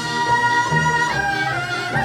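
Korean traditional (gugak) orchestra playing a slow, sustained melody over low bass notes; the lead melody note is held and then steps to a new pitch about halfway through.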